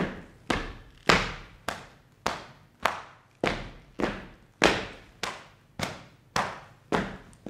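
Sharp slaps struck in a steady, even beat, a little under two a second, each with a short echo in the hall.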